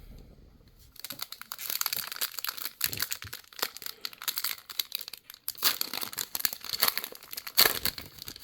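Plastic wrapper of a trading card pack being torn open and crinkled by hand, a dense crackling that starts about a second in.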